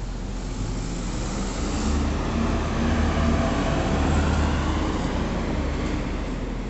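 A motor vehicle passing by: a low engine hum with road noise that swells over the first few seconds, peaks in the middle and fades toward the end.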